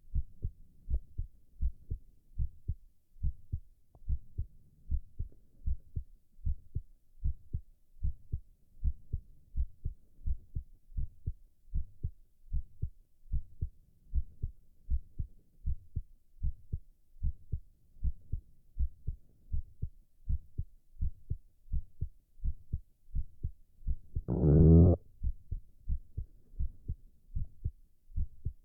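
A man's heartbeat, thumping in a steady, even rhythm. Near the end, one louder gurgle lasting about a second: a stomach growl.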